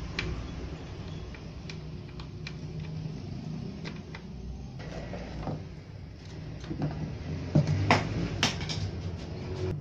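Light clicks and taps of hands handling a circuit board and metal parts inside an open amplifier chassis, with a few sharper knocks near the end, over a steady low rumble.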